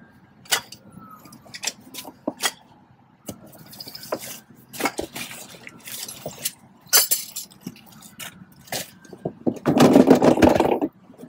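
Gear being taken out of a plastic Apache 9800 hard case: scattered knocks, clinks and rattles as items are lifted out and set down, with a longer, louder clatter near the end.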